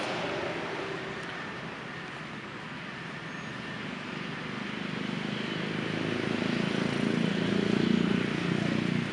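A distant engine, likely a passing vehicle, drawing nearer: a low hum that grows steadily louder through the second half.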